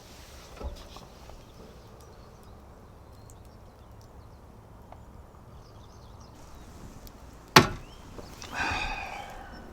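A single sharp knock about seven and a half seconds in, followed a moment later by a short pitched squeak lasting about half a second, over a low steady background.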